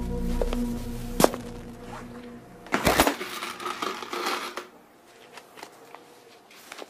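Sustained music tones fade out, with a sharp click about a second in. About three seconds in, coins clatter and jingle inside a glass jar for about a second and a half.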